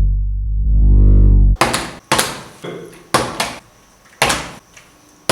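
Music: a deep, loud bass note whose brightness sweeps down and back up, cutting off about a second and a half in, followed by a string of sharp, short percussive hits.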